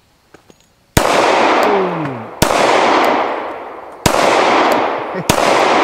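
Four 9mm pistol shots from a Glock 45 firing hollow points, spaced about a second to a second and a half apart. Each crack is followed by a long fading echo.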